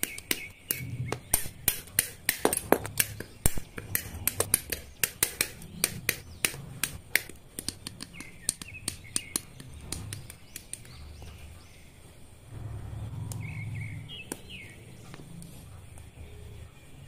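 Sharp clicks of side cutters snipping plastic model-kit parts off the sprue, many in quick succession, thinning out after about eleven seconds. Softer rustle and rubbing of the plastic parts being handled follows.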